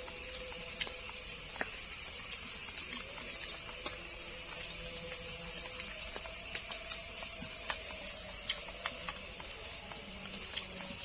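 Steady high chirring of night insects, with scattered light clicks and taps from someone eating a meal.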